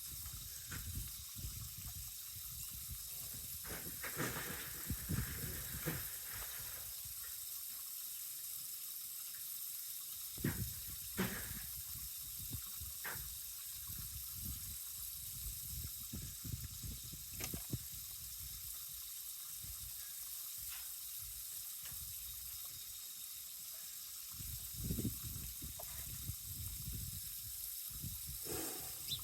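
Wind rumbling on the microphone in uneven gusts over a steady hiss, with a few scattered knocks.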